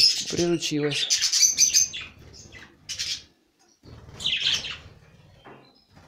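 A flock of budgerigars chirping and chattering in short high calls, with a flutter of wings as birds come and go at a hand-held feeder.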